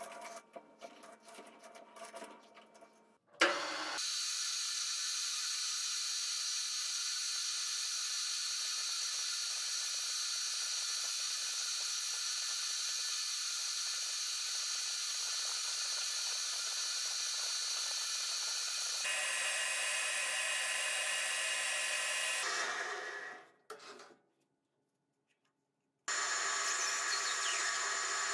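Metal lathe running while the ring-shaped cutter of a homemade ball-turning fixture shaves a white plastic bar: a steady machine whine with hiss. A few light clicks come first, then a sharp clunk as the lathe starts about three and a half seconds in. The sound dies away a little after twenty-two seconds, drops out for about two seconds, then the lathe runs again near the end.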